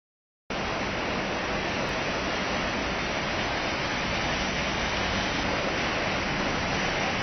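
Heavy monsoon rain pouring steadily on a waterlogged street: a dense, even hiss that cuts in about half a second in and holds steady.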